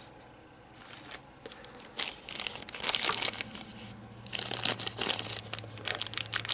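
Thin plastic parts bag crinkling and tearing as it is handled and ripped open, in bursts of crackling starting about two seconds in.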